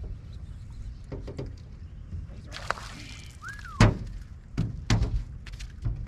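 Thumps and knocks on a fishing boat's deck as the anglers move about while reeling in a fish: a few sharp clicks early on, a short hiss around the middle, then several strong knocks in the second half.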